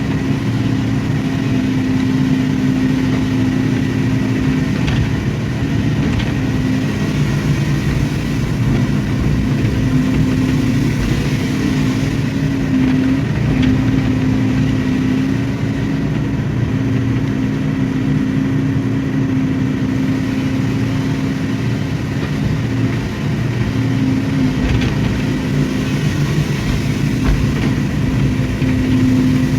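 Excavator's diesel engine running steadily at working speed.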